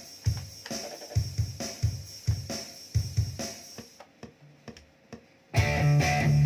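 A drum-machine beat with kick, snare and hi-hat plays on its own, with the guitar silent; it thins to a few faint hits about four seconds in. About five and a half seconds in, the electric guitar comes back in loudly over it.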